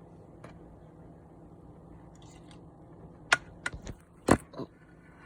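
A quick run of about five sharp clicks and knocks a little past halfway, from small parts and tools being handled while soldering an XLR cable connector.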